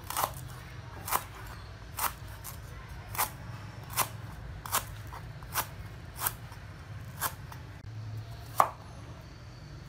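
Knife slicing lemongrass stalks on a plastic cutting board: single sharp chops at a steady, unhurried pace, a little under a second apart, with one louder chop near the end.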